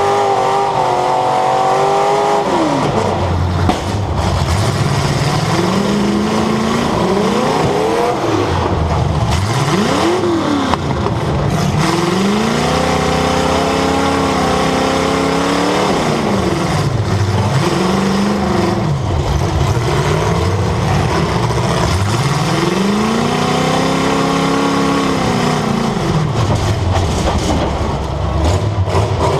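Demolition derby car's engine heard from on board, revving up and dropping off again several times in long swells, with a couple of brief sharp knocks.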